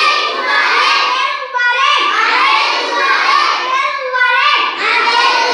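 A group of schoolchildren's voices chanting Tamil phrases together in a repeating sing-song pattern.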